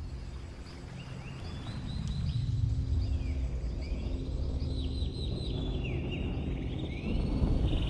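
Outdoor ambience: many short bird chirps over a steady low rumble, with a low sound sliding down in pitch about two seconds in.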